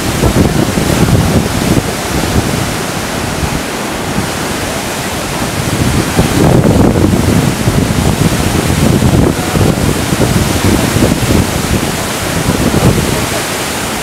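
Waterfall pouring down a steep rock chute, a loud, steady rush of white water, with wind buffeting the microphone in gusts.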